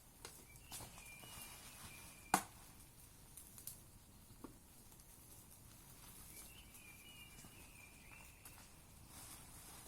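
A bird gives two long, thin, high whistles, each about two seconds, a few seconds apart. A single sharp snap comes about two seconds in, with a few fainter clicks, in a quiet outdoor background.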